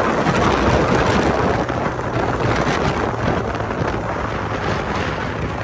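Wind rushing over the microphone of a Yamaha R15 V4 sport bike at high speed, with the 155 cc single-cylinder engine's steady drone faintly underneath.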